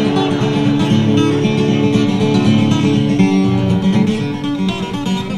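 Acoustic guitar strummed steadily in an instrumental break between verses of a song.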